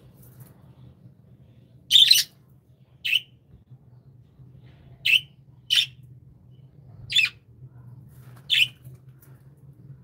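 Budgerigars giving short, sharp squawking calls, six separate calls spaced one to two seconds apart, the first about two seconds in and the loudest.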